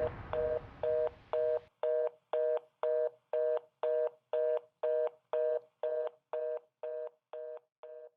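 Telephone fast busy signal (reorder tone): a two-note beep pulsing about twice a second, fading away over the last couple of seconds.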